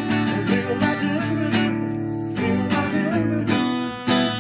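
Music led by strummed acoustic guitar.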